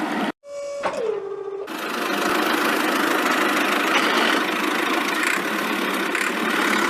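Vehicle engine running steadily as a cartoon sound effect. It cuts out abruptly just after the start, a short tone falls in pitch about a second in, and then the engine noise returns and keeps running.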